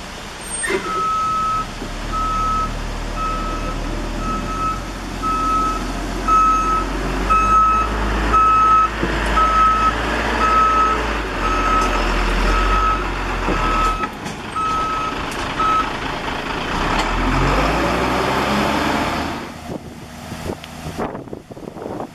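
Heavy-equipment backup alarm beeping steadily, about once a second, over a running diesel engine. The beeping stops about three quarters of the way through, then the engine revs up briefly and settles.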